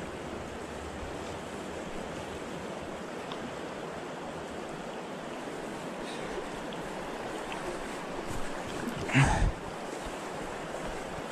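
South Platte River water flowing steadily past the bank, with a brief thump about nine seconds in.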